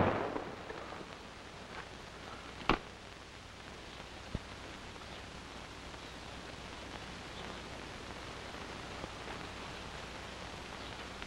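Low steady hiss of an old film soundtrack, broken by one sharp click nearly three seconds in and a fainter click a little over four seconds in.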